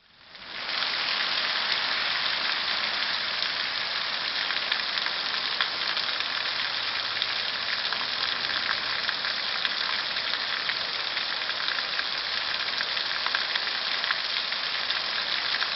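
Heavy rain in a thunderstorm: a steady, dense hiss of countless drops that fades in over the first second and then holds an even level.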